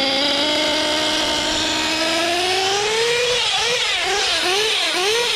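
Modified LRP .32X Spec 4 two-stroke nitro engine with a Novarossi tuned pipe, freshly started and still cold. It runs with its pitch creeping slowly upward, then from about three seconds in it is blipped, revving up and down about twice a second. It is tuned rich while it warms up.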